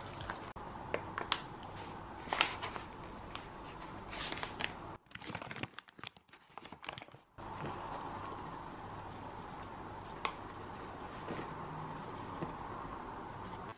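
A fork clicking against a bowl as eggs are beaten, several sharp taps. After a short near-silent break there is the rustle and crinkle of a bag as flour is poured out of it onto a plate, with a few light clicks.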